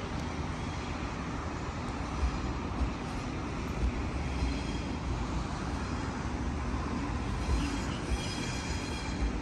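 Sydney Trains double-deck electric train passing at speed, a steady rumble of wheels on rail, with a faint high squeal near the end.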